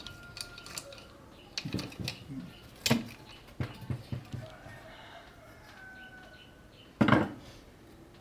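Metal parts of a rusted old storm lamp clinking and knocking as they are handled, with scattered light clicks and two louder knocks, about three and seven seconds in. Faint drawn-out tones sound in the background near the start and about six seconds in.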